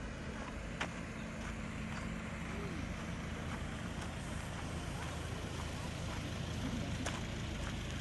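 A vehicle driving along a rough unpaved road: a steady low rumble of road and engine noise, with a few sharp ticks scattered through it.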